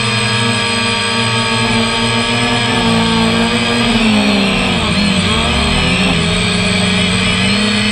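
DJI F330 quadcopter's brushless motors and propellers whining steadily, recorded from on board the drone; about halfway through, the pitch dips and rises again as the throttle changes.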